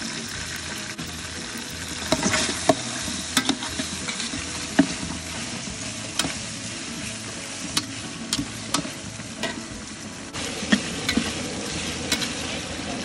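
Sliced onions and lemongrass sizzling in oil in a large aluminium stockpot, with a metal spatula stirring and scraping against the pot. Its irregular knocks begin about two seconds in.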